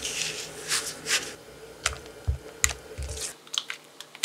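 Rubber spatula stirring and pressing buttered graham cracker crumbs in a glass bowl: gritty scraping swishes with light knocks and clicks against the glass. After about three seconds the sound changes to a few sharp clicks on a quieter background.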